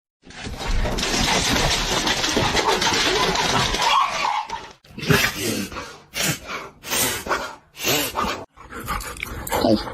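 A dog vocalising: a long rough, noisy stretch for the first half, then a run of short separate sounds a little under a second apart.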